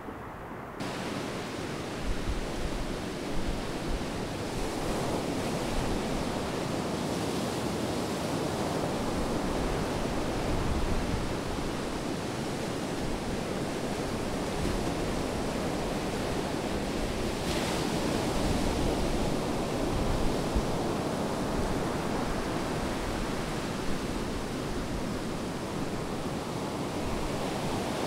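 Steady rushing noise of sea surf, starting abruptly about a second in and holding even with small swells.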